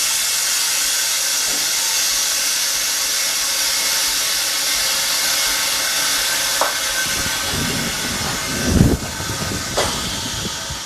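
Steady hiss of compressed air from an OCA bubble remover machine as its bubble-removal cycle nears the end, easing off a little in the second half. A few knocks and thuds come in the last few seconds.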